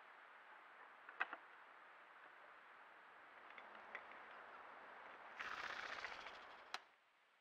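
Sharp clacks of bull moose antlers knocking together as they spar, over a steady trail-camera hiss. Near the end a grouse flushes with a whirring flutter of wingbeats lasting about a second.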